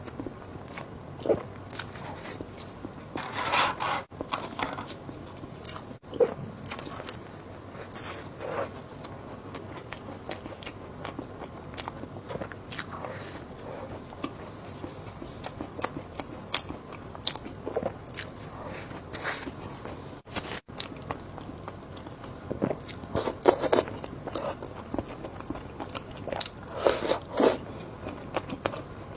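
A person eating close to the microphone: irregular bites, crunches and chewing, louder and busier in stretches about three seconds in and again near the end.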